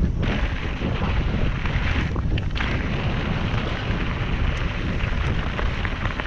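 Wind buffeting the microphone of a camera mounted on a mountain bike descending fast, mixed with the rumble of its tyres over loose dirt and gravel. The higher rushing briefly drops away at the start and again about two seconds in.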